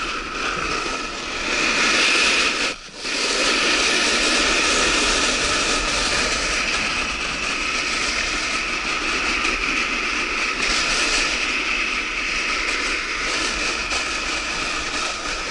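Steady scraping hiss of a kiter sliding over icy spring snow, with a faint whine over it. It drops out briefly about three seconds in.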